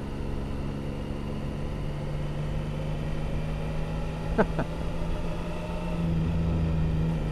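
Triumph Tiger 1050's three-cylinder engine running at steady revs under low wind and road rumble, getting a little louder about six seconds in. A brief sharp sound stands out about four and a half seconds in.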